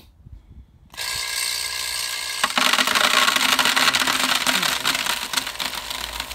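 Vibratory ore feed hopper starting up about a second in with a steady electric-sounding hum. About a second and a half later, crushed ore begins rattling down its vibrating chute and pouring into a plastic bucket, a loud continuous clatter over the hum.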